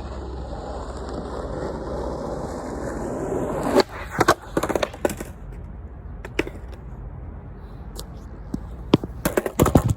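Skateboard wheels rolling for about four seconds, then a string of sharp clacks as the board hits the ground during trick attempts. Scattered clicks follow, with another burst of clacks near the end.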